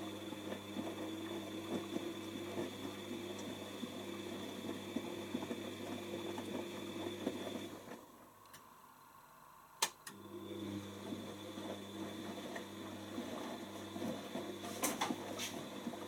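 Whirlpool AWO12963S washing machine tumbling its load with a steady motor hum during the load-sensing phase of the cotton cycle. The drum stops for about two seconds partway through, a sharp click follows, and the tumbling starts again. Near the end a few clicks come as the door lock engages.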